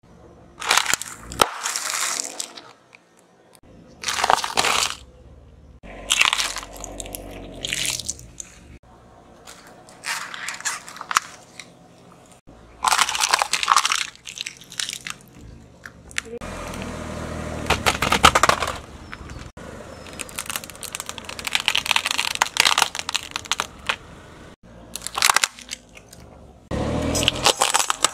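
A car tyre rolling over and crushing one object after another: a string of separate crunches, cracks and crackles, from a sealed snack bag, plastic drinking straws and a plastic toy giving way under the wheel.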